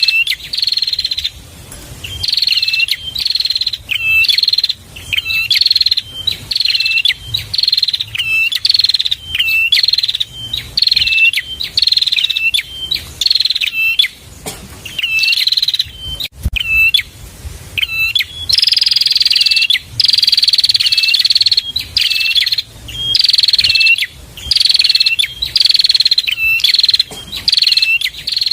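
A prenjak (prinia) singing a fast, repeated buzzy phrase, about one a second, each set off by sharp clicking notes. A longer unbroken phrase comes about two-thirds of the way through.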